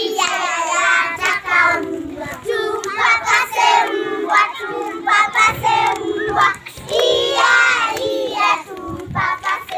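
A group of young children singing a singing game together in unison, clapping their hands along.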